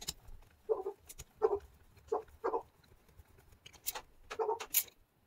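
Light metal clicks and taps of a small driver and steel screws being set into a chainsaw cylinder, with several short, muffled low sounds between them.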